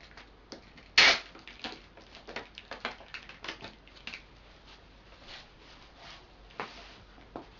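Hands pressing and rubbing wide adhesive tape down onto a row of plastic bottles: a run of small scratches, clicks and plastic crackles, with one louder crackle about a second in.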